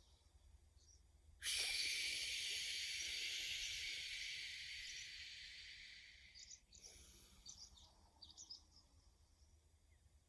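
A long "shhh" exhaled through the teeth, the liver healing sound of Medical Qi Gong. It starts suddenly about a second and a half in and fades away over about five seconds, followed by faint quiet breathing.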